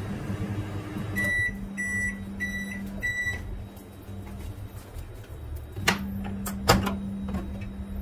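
LG MS2042DB microwave oven ending its heating cycle: the running hum gives way to four short, evenly spaced high beeps that signal the end of cooking. About three seconds later come two sharp clicks as the door is released and swung open.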